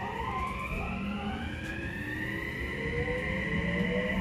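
Mitsubishi IGBT VVVF inverter and traction motors of an Odakyu 3000-series (1st batch) train, heard from inside the car, whining as the train accelerates. Several tones climb steadily in pitch, with wavering tones in the first second or so, over a low rumble of the running gear.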